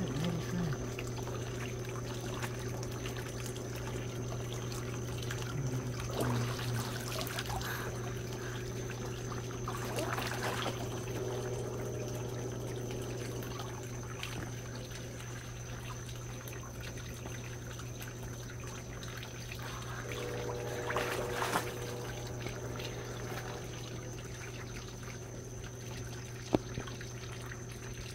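Bullfrog Spa hot tub with its jets running: water churning and splashing around a person in the tub, over the steady hum of the pump. A sharp tap sounds once near the end.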